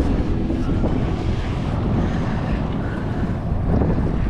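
Steady wind rumbling on the microphone over a choppy lake, with waves slapping the boat.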